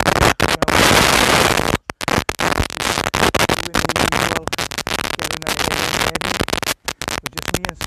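Loud crackling, hissing noise from a faulty, partly unplugged microphone connection, cutting out to silence several times for split seconds.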